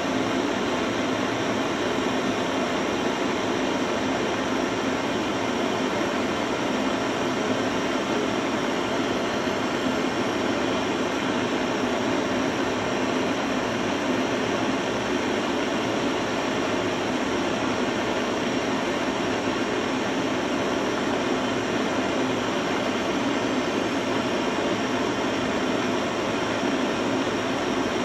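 Gas blowtorch flame burning with a steady, unbroken hiss.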